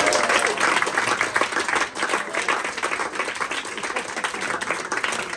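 A crowd applauding, the clapping loudest at the start and easing off a little, with a few voices calling out over it near the start.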